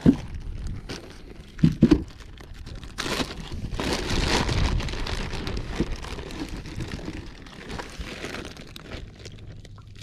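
Clear plastic bag crinkling as hands work it open, loudest from about three seconds in, with a few sharp knocks in the first two seconds.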